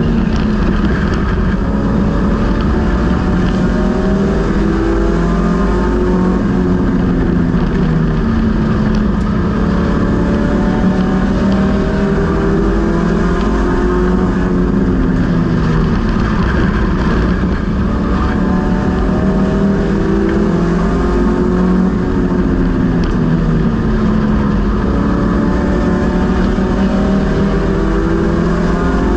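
Race car engine heard from inside the stripped-out cockpit while racing on a short oval track. Its pitch climbs and falls over and over as the car accelerates down the straights and backs off for the turns.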